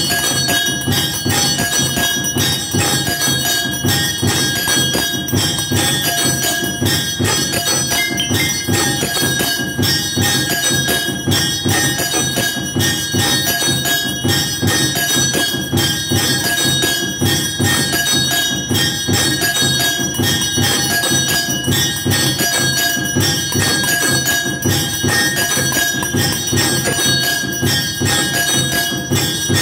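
Puja bells ringing continuously with fast, even strikes, as rung through the abhishek (ritual bathing) of a Hindu deity.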